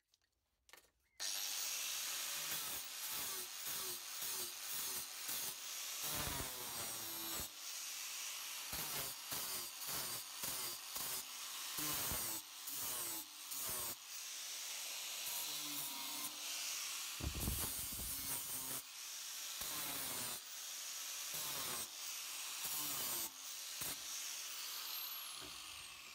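Angle grinder grinding a metal horseshoe in a vise, the disc scraping across the shoe in repeated passes with short breaks and the motor pitch shifting under load, winding down near the end. This is the grinding-out stage of preparing the shoe before welding aluminium inserts.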